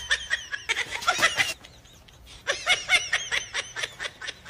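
A person laughing in short repeated bursts, which stop for about a second in the middle and then start again.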